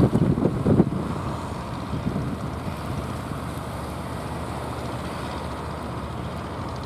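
Boat engine running steadily, with wind buffeting the microphone during the first second or so.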